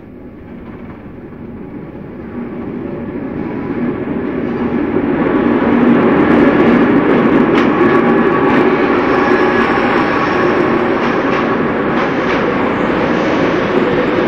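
Rhaetian Railway G4/5 metre-gauge steam locomotive and its coaches approaching and passing close by. The sound grows louder over the first six seconds, then holds as the coaches roll past with a few sharp clicks from the wheels.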